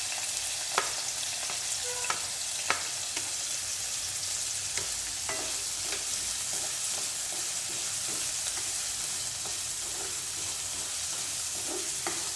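Chopped onion sizzling in hot oil in a frying pan, with a steady hiss. It is being stirred, and the utensil clicks against the pan now and then, most sharply twice in the first few seconds.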